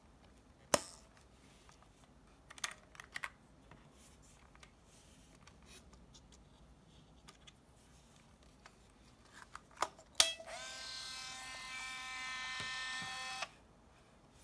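Plastic clicks of an Olympus Trip AF 51 compact film camera's back door being opened and handled, then a louder snap as the door shuts, followed by the camera's built-in film motor whirring for about three seconds as it auto-advances the loaded film. The whir rises briefly in pitch as it starts, then holds steady and stops abruptly.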